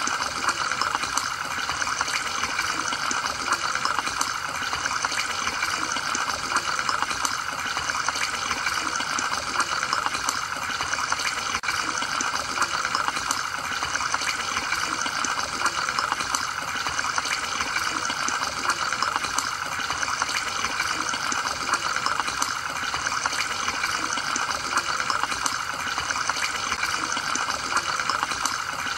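Aquarium water bubbling and trickling steadily from air-driven sponge filters, with a constant patter of small bubble pops.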